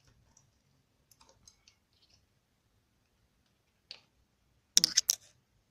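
Light scattered clicks and taps from hands handling a small wire-framed cotton-wool figure by its wire hook, with a quick run of sharper clicks near the end.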